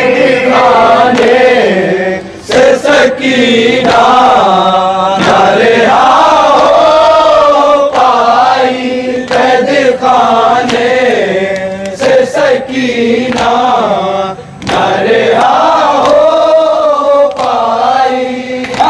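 Men chanting a nauha, a Shia mourning lament, into microphones, the group's voices joining in a repeating melody. Sharp slaps of matam (chest-beating) cut in at intervals.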